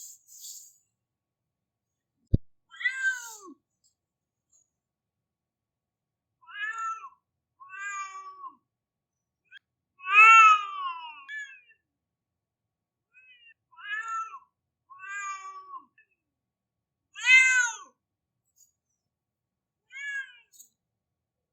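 Domestic cat giving about eight drawn-out, baby-like crying meows, each rising then falling in pitch, with gaps of silence between; the loudest cries come near the middle and about three-quarters of the way in. A sharp click just before the first cry.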